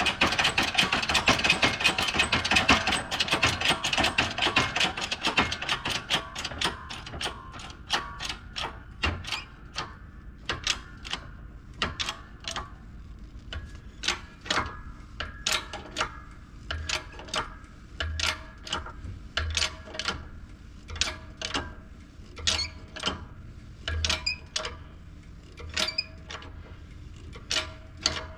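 Hand press tool clicking as it is worked to press the hub onto a water pump shaft. A rapid run of ratchet-like clicks for the first six seconds or so slows to separate clicks, about one or two a second.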